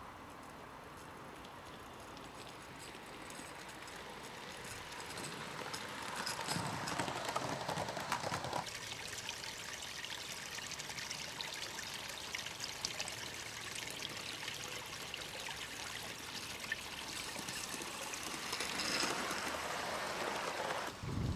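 A small 16mm-scale live-steam model locomotive hissing and chuffing as it runs with its carriages. It gets louder about six seconds in, cuts off abruptly near nine seconds, and swells again as it passes close near the end.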